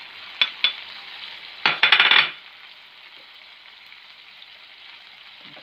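Chicken in tomato gravy sizzling steadily in a frying pan as a wooden spatula stirs in freshly added ground spices. There are two light clicks about half a second in, and a louder burst of scraping against the pan around two seconds in.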